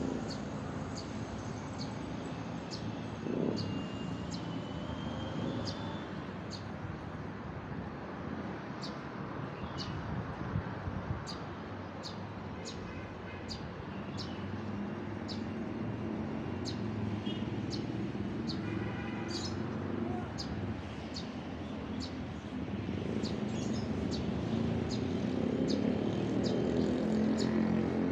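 A bird repeating a short, high chirp about once a second, with a few other bird whistles. Underneath is the steady hum of engine traffic, which grows louder near the end.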